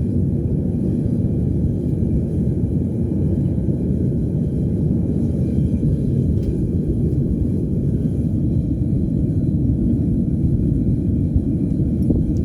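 Burners firing inside a homemade metal-melting furnace, giving a steady low rumble without a break.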